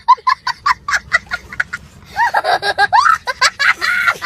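A young child laughing hysterically: quick high pitched bursts of laughter about six a second, then longer squealing cries that rise and fall.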